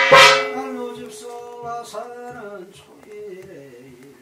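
A single loud ringing strike at the start that fades over about a second, then a man chanting a slow, wavering ritual melody.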